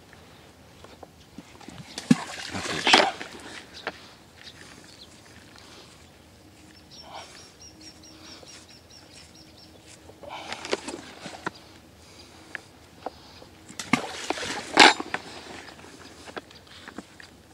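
Balls of groundbait thrown by hand into a shallow pond, splashing into the water three times, each landing a short sharp splash.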